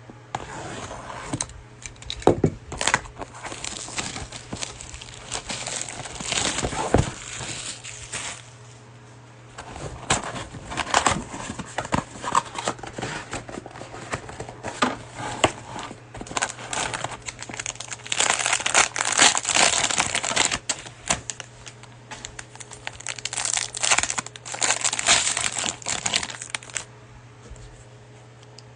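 Cellophane wrapping crinkling and tearing as a trading-card box and its plastic-wrapped cello packs are opened by hand, in irregular crackling spurts with a short lull about nine seconds in.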